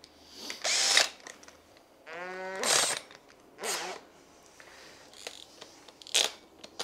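Cordless drill with a 70 mm hole saw fitted, spun freely in several short trigger blips; each time the motor whirs up in pitch and stops.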